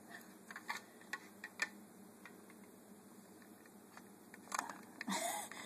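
Faint clicks and taps of a metal wire egg slicer being handled on a plate as a piece of banana is set into its cradle, with a short louder noise near the end.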